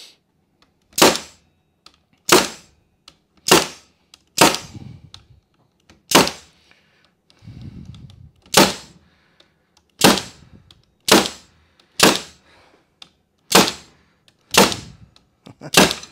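Pneumatic air stapler driving staples into wooden beehive frames in an assembly jig. About a dozen sharp shots, one every second or so, with an uneven rhythm.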